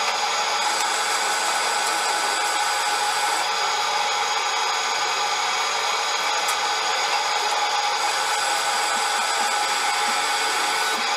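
Manual engine lathe running steadily: an even mechanical whir with several steady tones over a hiss, holding a constant level.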